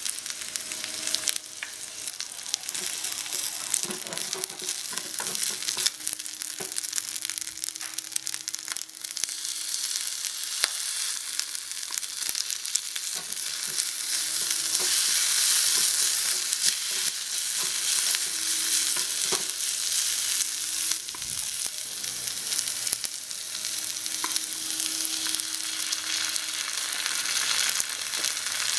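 Diced pork frying in a tiny metal wok, a steady sizzle, with a small wooden spatula stirring and scraping against the pan in little clicks. The sizzle swells louder around the middle.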